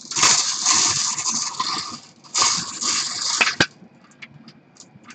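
Dice shaken hard in a cup in two bouts, a rattling clatter, ending in a sharp knock as they are rolled out, followed by a few faint clicks as they settle. This is the roll that picks the team for the card.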